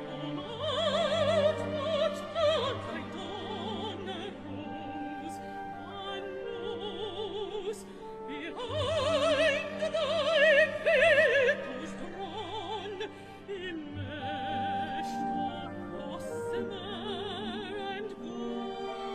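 A woman singing in classical operatic style with wide vibrato over an orchestra, holding long notes that swell to two louder phrases.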